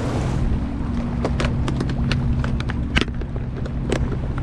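Steady low hum of a boat's idling motor, with scattered sharp clicks and rattles from a clear plastic tackle box being handled.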